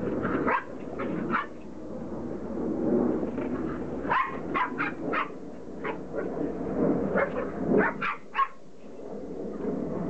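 Border collie puppies yapping and barking in short, high-pitched yips as they play-fight, with a flurry of yaps about four seconds in and another around eight seconds.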